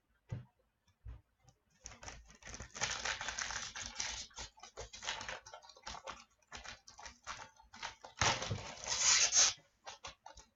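A hockey card pack's foil wrapper is torn open and the cards are handled, making a run of crinkling, rustling and short clicks. It is louder at about three seconds in and again near the end.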